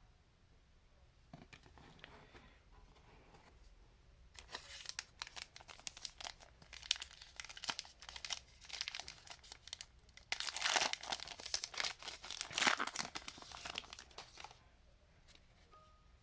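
A trading-card pack wrapper being torn open and crinkled by hand: a faint rustle at first, then about ten seconds of loud tearing and crackling, loudest near the end, before it stops.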